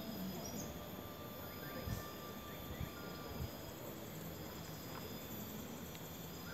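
Outdoor ambience of insects buzzing steadily and a few birds calling, with two brief low thumps about two and three and a half seconds in.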